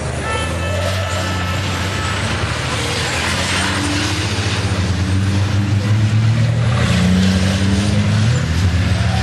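Several diesel racing trucks running hard through a corner, their engines overlapping, with the pitch climbing as they accelerate out of it.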